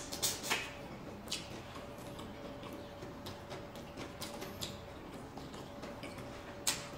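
Close-up mukbang eating sounds: a mouth chewing, with scattered small wet clicks and smacks, over a faint steady hum.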